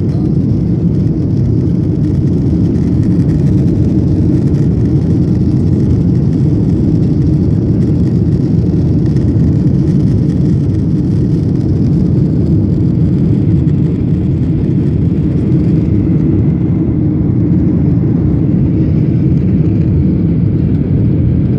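Cabin noise of a Boeing 737 jetliner climbing out after takeoff: the engines and rushing air make a loud, steady, low rumble heard from a window seat over the wing.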